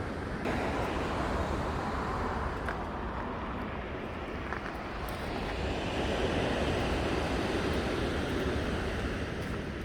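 Steady rushing outdoor noise with no clear tone, such as wind, surf or traffic, growing louder about half a second in and again around six seconds in.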